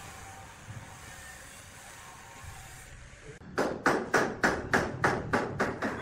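A rapid, evenly spaced series of sharp knocks, about four a second, starting a little past halfway, over a low steady background noise.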